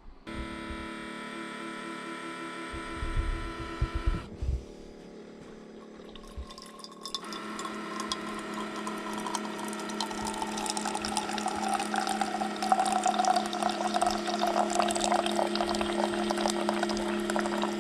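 Keurig single-cup coffee maker brewing: its pump hums steadily, eases off about four seconds in, then starts up again stronger a few seconds later as coffee streams into the mug.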